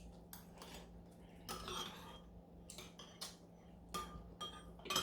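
Cutlery clinking and tapping against bowls as a meal of soup is eaten: scattered light clinks, a few of them ringing briefly.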